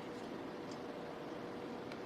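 Steady background hiss with a faint steady hum and no distinct events: room tone.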